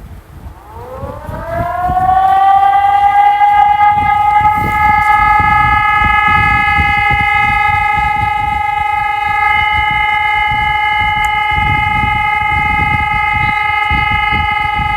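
Digitex DSE600S electronic civil-defence siren sounding. Its tone rises over about two seconds, then holds one steady pitch with overtones, over a low rumbling noise.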